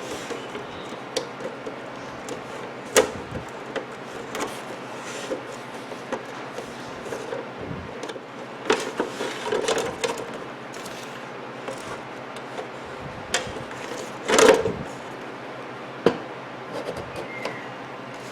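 Scattered small knocks and clicks of a wall clock's glass front and frame being handled and lifted off, with a sharp knock about three seconds in and a louder, longer knock near the end.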